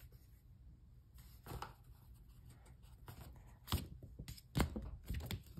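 Sticker sheets and paper being handled on a desk: a few short taps and rustles as sheets are picked up, moved and set down, starting about a second and a half in and coming more often near the end.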